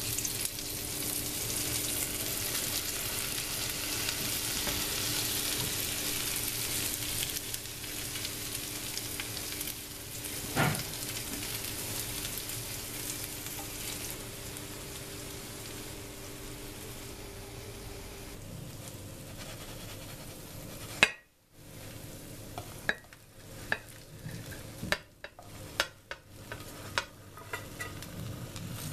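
Egg omelette with potatoes, peppers and sucuk sizzling steadily as it fries in the pan. Near the end the sizzle drops away after a sharp click, and a few short knocks and scrapes follow.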